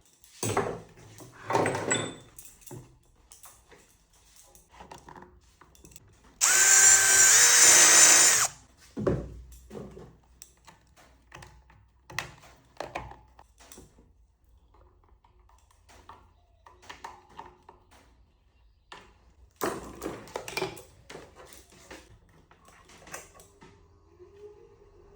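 Scattered clicks and knocks from small parts being handled, with a loud two-second burst of high-pitched whirring from a small power tool about six seconds in. Near the end a low motor hum rises and then holds steady.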